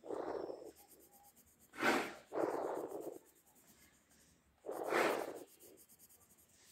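Pencil lead scratching on paper while shading in a drawing, in a few short bursts a couple of seconds apart.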